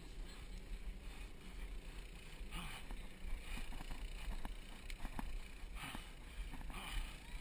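Muffled rustling and handling noise from a GoPro in its waterproof housing as the wearer climbs over the top of a rope cargo net, with a low rumble throughout, a few sharp knocks and short bursts of hiss in the second half.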